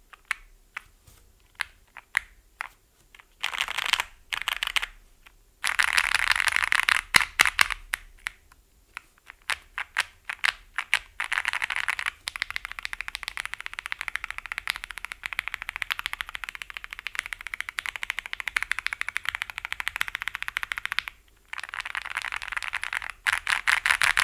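Thera75 custom mechanical keyboard, built plateless with lubed and filmed JWK Seals switches, PE foam and IFK keycaps, being typed on. A few scattered keystrokes come first, then long runs of fast, continuous typing broken by short pauses.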